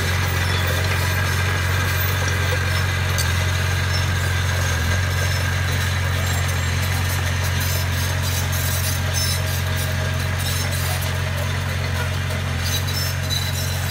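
Komatsu D20A crawler bulldozer's diesel engine running at a steady, even drone as the dozer pushes gravel with its blade.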